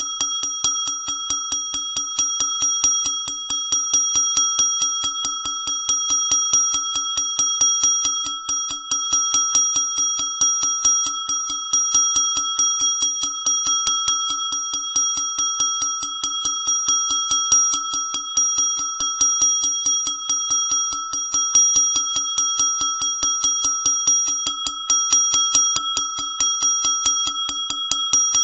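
Small brass bell rung rapidly and without pause, its clapper striking several times a second and keeping up a steady, bright ring.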